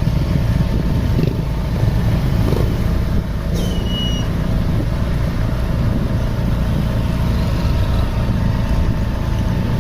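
Bus engine running with a steady low rumble, and a short high whistle that drops in pitch, then holds, about three and a half seconds in.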